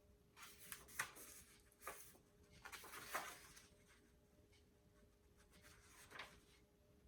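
Faint rustling of a book's paper pages being leafed through, in several short swishes over the first few seconds and once more near the end.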